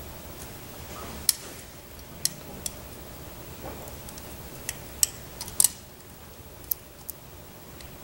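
Utility knife cutting around the plastic jacket of RG59 coaxial cable: a scattered, irregular series of small sharp clicks and snicks as the blade bites and the cable is turned.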